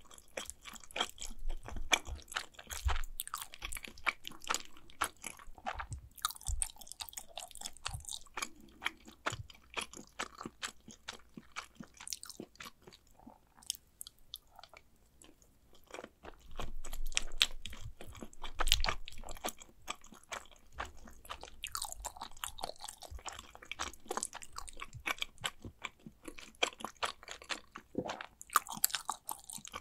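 Close-miked chewing of mac and cheese: many quick mouth clicks and smacks. There is a quieter lull a little before halfway and a louder, denser run of chewing just after it.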